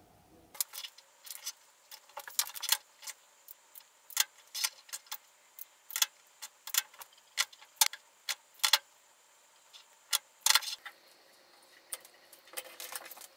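Irregular clicking and rattling of stiff insulated wires being handled and worked through a ferrite ring, the wire ends tapping the ring and the wooden bench. It is dense for the first ten seconds, sparser afterwards with a few clicks near the end.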